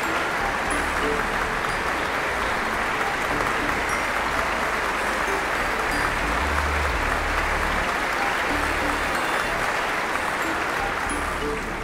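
Opera-house audience applauding steadily, greeting the conductor before a performance; the clapping dies away at the very end.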